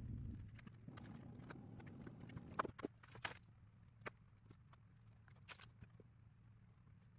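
Faint scattered clicks and taps of small plywood model-kit parts being handled on a table, with a louder cluster of clicks a few seconds in, over a low steady hum.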